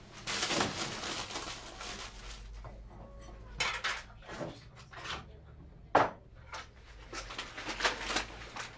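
Household clatter: a rustling scrape at the start, then a string of short knocks and clinks as objects are handled, the sharpest about six seconds in and a quick cluster near the end.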